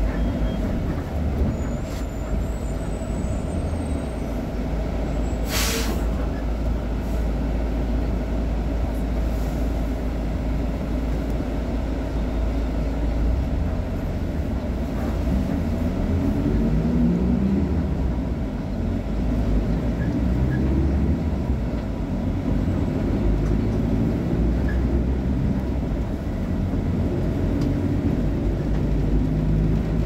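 VolksBus 17.230 OD city bus's diesel engine idling steadily, with one short hiss of released air from its pneumatic brake system about six seconds in.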